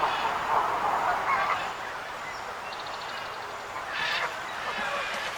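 A flock of wild geese honking, with many short nasal calls overlapping. The calling is thickest in the first two seconds, thins out after that, and picks up again about four seconds in.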